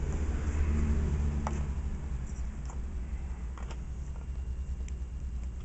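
Hands handling a LiPo battery's plastic XT60 plug and its leads to connect it, giving a few faint clicks over a low rumble that is strongest in the first two seconds.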